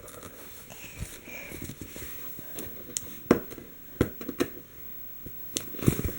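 Packaging being pulled and handled as the sewing-machine box is opened: scattered crackles, clicks and light knocks of tape, cardboard and plastic.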